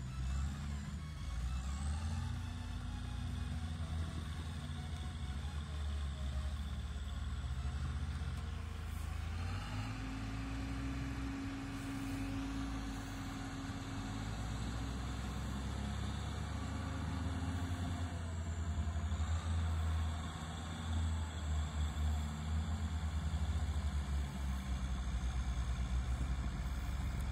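Tractor diesel engine working under load, its engine speed dropping and picking up again several times.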